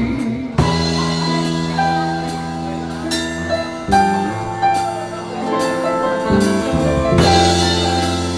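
Instrumental break in a pop ballad's backing music between sung lines: a steady drum beat with cymbal hits over sustained bass notes and chords.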